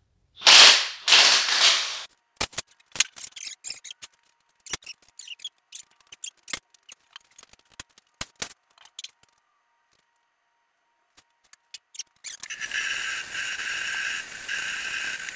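Power impact wrench on the flywheel bolts of a Toyota 22R engine, two short loud runs, followed by scattered metallic clinks and knocks of bolts and tools. Near the end a steady hiss with a whine sets in.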